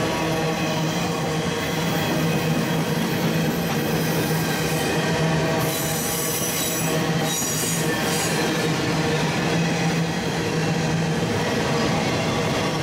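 Freight cars (empty intermodal well cars and autoracks) rolling past on steel rails, with a continuous rumble and a steady squealing of the wheels. The squeal grows shriller and brighter about six seconds in, and again about a second and a half later.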